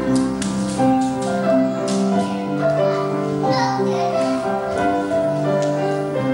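Instrumental music: a melody of held notes stepping up and down, over light percussive strokes.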